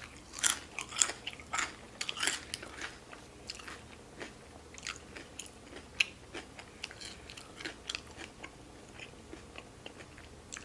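Close-miked chewing of crisp food: crunchy bites and crackles, dense for the first few seconds, then sparser and softer chewing.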